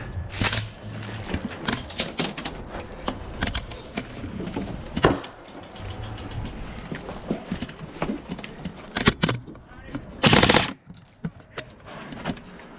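Airsoft guns firing during a game: scattered single shots and sharp clicks of BBs striking, then, about two seconds before the end, a short full-auto burst of an electric airsoft gun, loud and very rapid.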